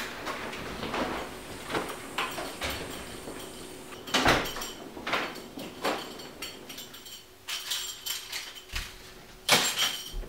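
A person moving about a house: a door, footsteps and the handling of a paper bag, heard as a string of separate knocks, thuds and rustles. The loudest come about four seconds in and again near the end.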